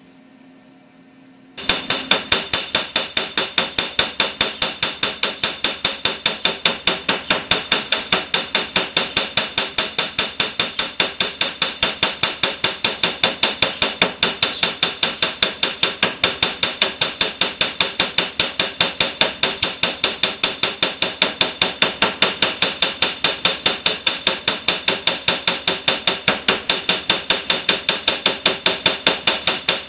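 Ball hammer rapidly beating a metal strip on an iron flat base, about four strikes a second, each with a high metallic ring, texturing the metal's whole surface with a hammer-beaten finish. The hammering starts abruptly about a second and a half in.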